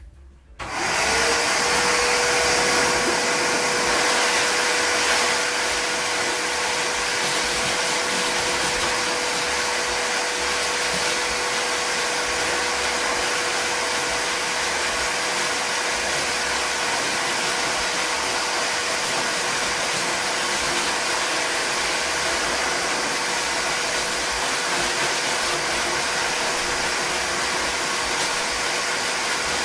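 Pet grooming dryer with a hose and nozzle, blowing air onto a wet dog's coat after the bath. It switches on about a second in, its motor tone quickly rising to a steady pitch, then runs steadily with a loud rush of air.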